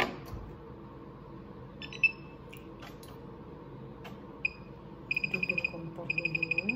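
Electric hob's touch controls beeping as it is switched on and the heat setting is tapped in: a single short beep about two seconds in, another a little past halfway, then two quick runs of rapid beeps near the end.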